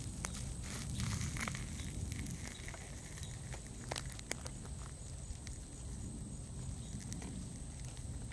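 Soft rustling and crackling with scattered small clicks over a low steady rumble; one sharper click about four seconds in.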